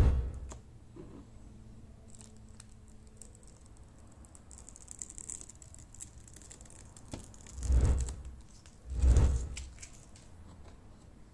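Clear application tape being peeled off a vinyl decal on a car's rear reflector: a soft crinkling, tearing rustle. Three dull low thumps stand out above it, one right at the start and two about a second apart near the end.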